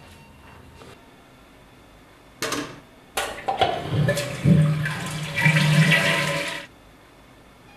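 Toilet flushed with a wall-mounted push-button flush valve. Water rushes in two goes, a short one and then a longer one of about three seconds, which stops abruptly.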